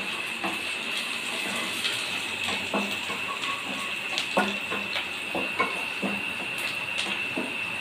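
Chopped onions and bay leaves sizzling in oil in a kadai, with a wooden spatula scraping and knocking against the pan now and then as they are stirred.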